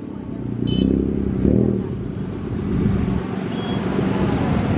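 Diesel locomotive engine running with a steady low throb.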